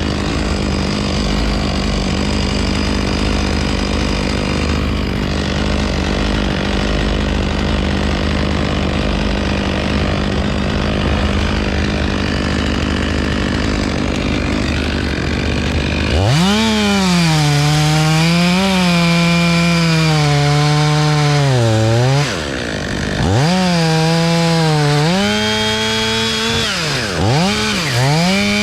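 Two-stroke chainsaw at high revs, its engine note steady at first. About halfway through, a closer saw takes over: its pitch sags and recovers again and again as the chain bogs down in the wood. The sound drops out briefly a little past the middle, and there are quick revs near the end.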